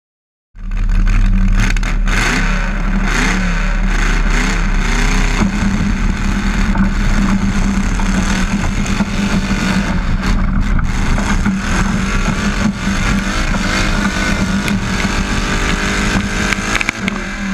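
Modified garden tractor engine running hard at high revs under load during a pull, heard close up from an onboard camera on the tractor. It cuts in abruptly about half a second in, climbs in revs over the first few seconds, then holds steady.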